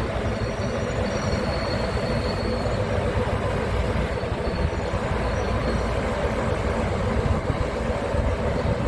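Scania truck's diesel engine running steadily, driving the hydraulic pump of its truck-mounted knuckle-boom crane as the boom is moved. A faint high whine is heard over it in the first few seconds.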